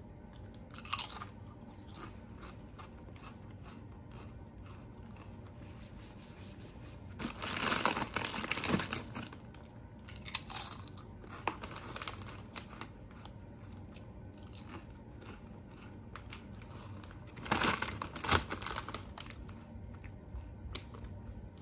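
Someone crunching on thin Herr's Crisp 'N Tasty potato chips: two loud bouts of crunching, about seven and about seventeen seconds in, with quieter chewing between.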